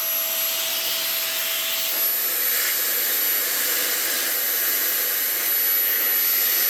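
Vax Air upright vacuum cleaner running steadily: a rush of air with a thin high whine, the motor drawing freely after a service that cleared its blocked airflow. It gets slightly louder about five and a half seconds in.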